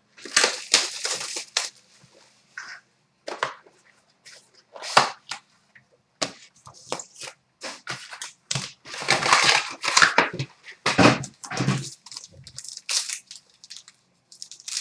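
Plastic and cardboard packaging of a sealed hockey card box being torn open and crinkled, in irregular short bursts of rustling and tearing.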